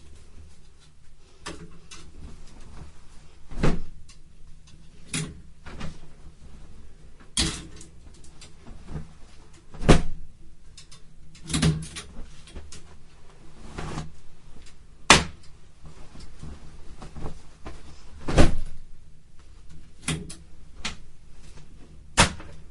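Cardboard packing boxes being handled: irregular thumps, knocks and scrapes every second or two, with a few heavier knocks about ten, fifteen and eighteen seconds in.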